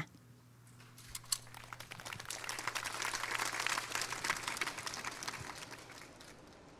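Audience applauding: a light clapping that builds about two seconds in and dies away near the end.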